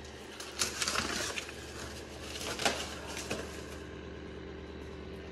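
A few scattered clicks and rustles of plastic parts and cloth being handled in the first three and a half seconds, over a steady low hum.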